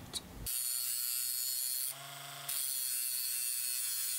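Small handheld rotary tool with a thin cut-off disc starting up about half a second in and running at a steady high whine. About two seconds in it briefly drops in level and changes tone for about half a second, then picks up again.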